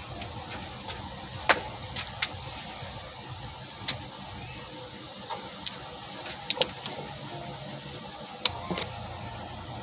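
About a dozen sharp cracks and clicks at irregular intervals, the loudest about a second and a half in, over a steady low hum.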